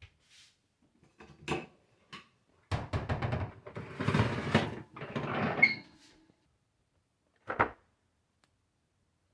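Handling noises: a run of knocks and rattling, as of a hard plastic object being picked up, moved and set down, then a single knock near the end.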